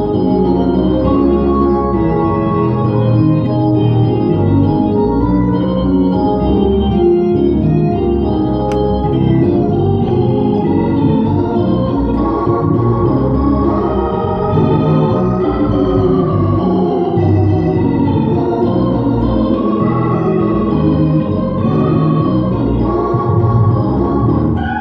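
Organ being played continuously: held chords with a moving melody line over them, at a steady level.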